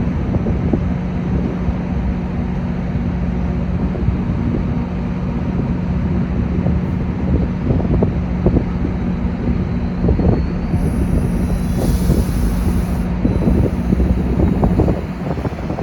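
Diesel passenger train running through the station: a steady low engine drone with irregular knocks and clatter, and wind buffeting the microphone. A high hiss joins about eleven seconds in.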